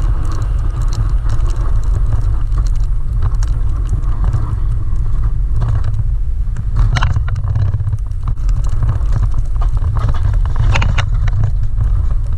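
A truck driving, heard from inside: a steady low engine and road rumble with scattered clicks and rattles, and a couple of louder crackles.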